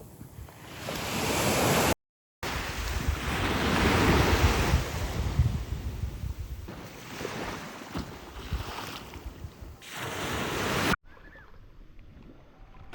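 Ocean waves washing in on a shore, swelling and ebbing, with wind buffeting the microphone; the sound drops out briefly about two seconds in and turns quieter near the end.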